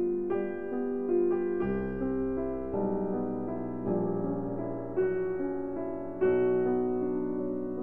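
Piano music: struck notes that ring and fade, over low bass notes that change every two seconds or so.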